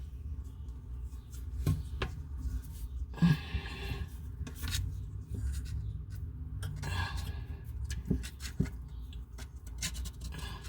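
Rubbing, rustling and scattered light clicks of hands working under a bathroom sink, handling faucet fittings and sealing tape.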